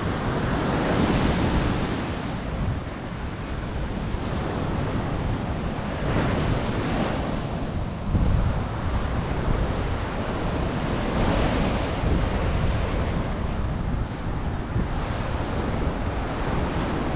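Ocean surf breaking on a beach, waves washing in every few seconds, with wind buffeting the microphone.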